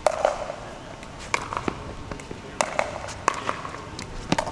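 Pickleball rally: sharp pops of a plastic ball struck by paddles, about five hits roughly a second apart.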